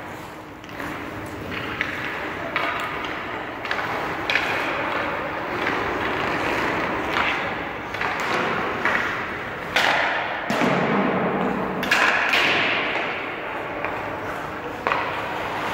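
Hockey skate blades scraping and carving on rink ice, stride after stride, about one scrape a second, with occasional knocks. The scraping grows loudest about ten to twelve seconds in.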